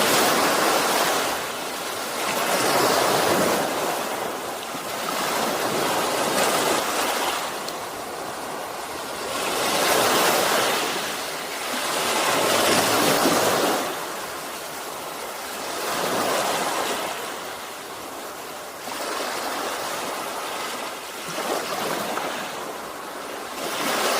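Sea waves breaking and washing on the shore, a hissing surge that swells and falls back every two to three seconds.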